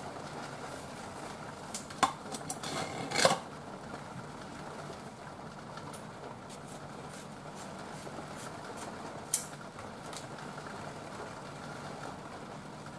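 Kitchen utensil handling: a few light clicks and a short clatter about two to three seconds in, and one more click about nine seconds in, over a steady background hum.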